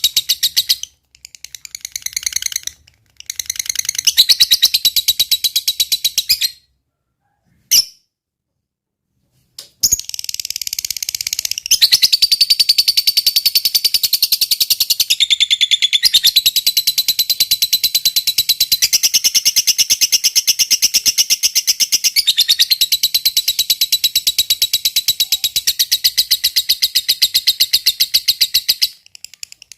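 Lovebird giving its long 'ngekek' song: a very rapid, high-pitched chattering trill in bouts. After a few seconds of silence near the middle, it runs unbroken for over fifteen seconds.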